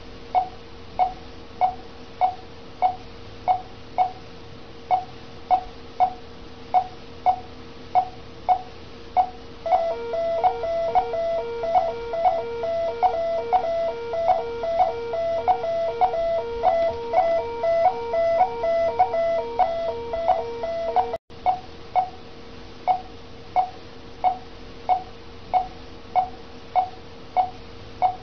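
Patient monitor's pulse-oximeter beep: one short tone about once a second, keeping time with the heartbeat. About ten seconds in, a pulsing multi-tone alarm joins it for roughly eleven seconds, then cuts off abruptly. A steady hum runs underneath.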